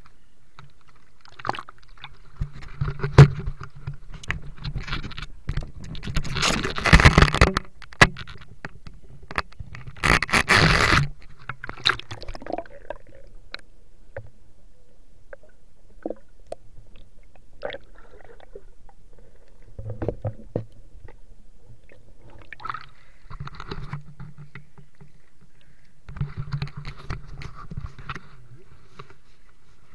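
Water splashing and gurgling close to a camera that dips in and out of a river, with scrapes and knocks against it. There are two loud rushing bursts of water noise, about six and ten seconds in.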